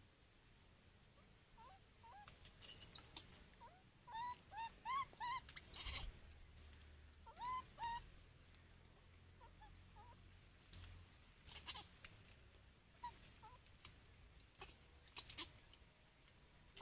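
Baby monkey calling with short, high, rising-and-falling cries, a quick run of about five a few seconds in, then a pair and a few fainter ones later. A few sharp clicks come between the calls, the loudest early on.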